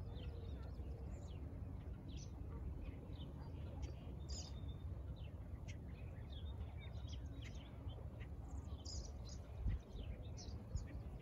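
Small birds chirping and calling, many short overlapping calls, over a steady low rumble, with one soft thump about ten seconds in.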